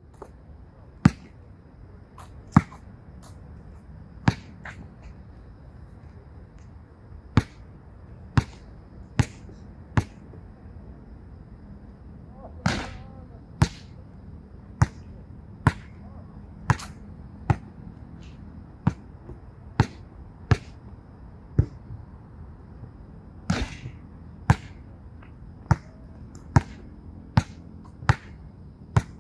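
Basketball bouncing on an outdoor court and striking the backboard and rim on free-throw bank shots: sharp single impacts every second or so, unevenly spaced, with two longer rattling clatters, one near the middle and one near the end.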